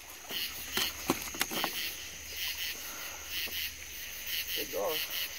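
Night chorus of crickets and other insects chirping steadily, with a few sharp clicks in the first two seconds.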